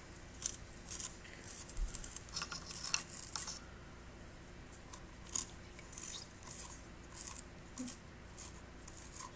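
A pencil being sharpened in a small handheld sharpener: irregular dry rasping scrapes in two runs of strokes, the second starting about halfway through.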